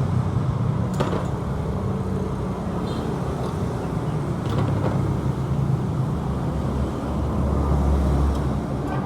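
Yamaha Exciter 135's single-cylinder four-stroke engine running steadily, with a sharp tick about a second in and a deeper swell a little before the end.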